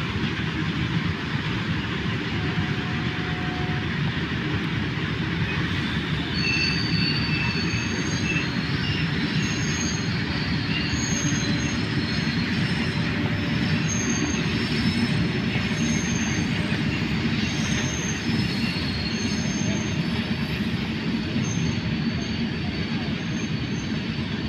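Freight train hauled by electric locomotives running slowly past: a steady rumble of wagon wheels on the track, with short high-pitched wheel squeals repeating from about six seconds in.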